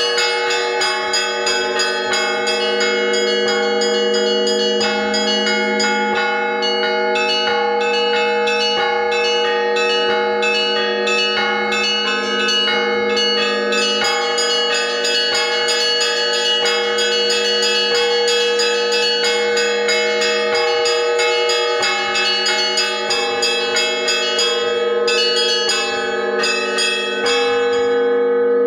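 Russian Orthodox church bells rung by a single bell-ringer: quick, dense strikes on the small bells over the lasting hum of the larger bells, the small bells thinning out near the end.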